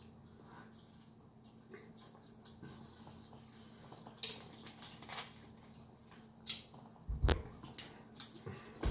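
Quiet close-up eating sounds: chewing and lip smacks while eating fried chicken, with a few scattered clicks and a dull thump about seven seconds in.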